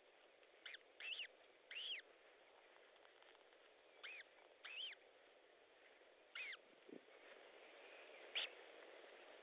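A newly hatched osprey chick peeping while being fed: about six short, thin, high peeps, each rising then falling, spaced irregularly over a faint steady hiss. A sharp click sounds near the end.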